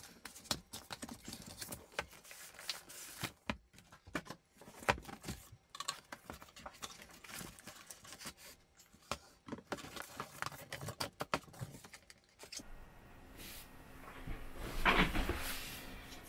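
Faint handling of a cardboard graphics-card box: scattered light clicks, taps and rustles as the lid is opened and the card is lifted out of its foam insert, with a louder handling noise lasting about a second near the end.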